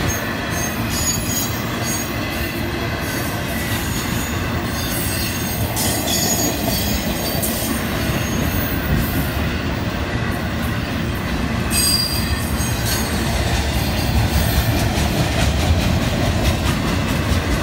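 Florida East Coast intermodal freight cars rolling past at a grade crossing: a steady rumble of steel wheels on rail, with short high-pitched wheel squeals coming and going.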